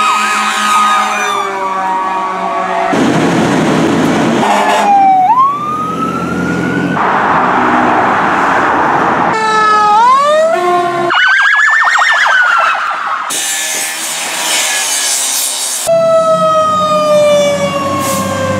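A quick succession of fire-truck response sounds, cut together every few seconds: siren wails winding up and sweeping down, and blaring horn blasts that drop slightly in pitch as the trucks pass.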